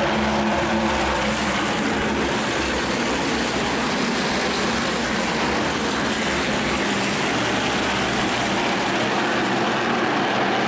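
A pack of NASCAR Whelen Modified race cars' V8 engines running at speed around the oval, heard as one loud, steady drone of many engines together. Distinct engine notes stand out in the first couple of seconds, then blend into the wash.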